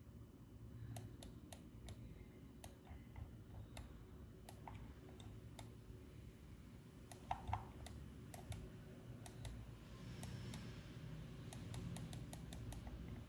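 Faint, irregular clicking of a computer mouse and keyboard, about two clicks a second with a slightly louder cluster midway, over a low steady hum.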